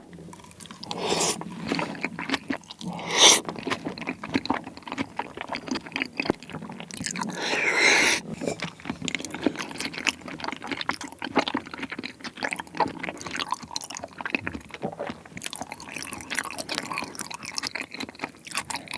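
Close-miked chewing of a bite of raw salmon coated in Bburing sauce, with wet mouth smacks and small clicks. There is a sharp louder click a few seconds in and a brief scraping sound about eight seconds in.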